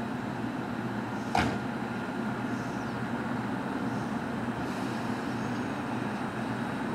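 JR Kyushu 813 series electric train standing at the platform, its onboard equipment humming steadily. A single short knock comes about a second and a half in.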